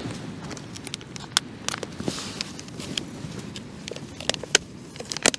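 Diced chorizo being tipped from its plastic packet into a bowl: irregular light clicks and ticks as the pieces land, with a short packet rustle about two seconds in. A steady low wind rumble runs underneath.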